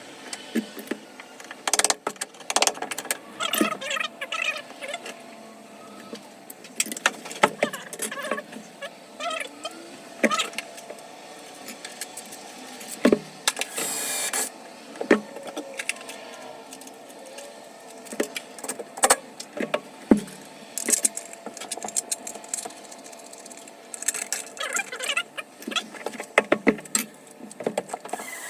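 Irregular clicks, knocks and clatter of tools and metal parts being handled during shower valve work, with a short scraping rub about halfway through.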